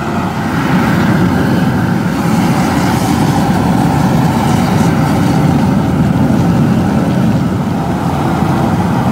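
Propane burner under a large crawfish boil pot, running with a steady low rumble and hiss.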